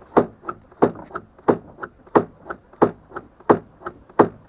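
Front suspension of a VAZ car knocking as the body is rocked with the wheels turned right: sharp, loud knocks about three times a second, alternating strong and softer. The knocks come from the coil spring catching on the newly fitted plastic wheel-arch liner.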